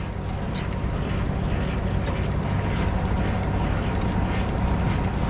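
Freightliner FLD semi truck's diesel engine idling steadily, with a low hum and an even, light clatter.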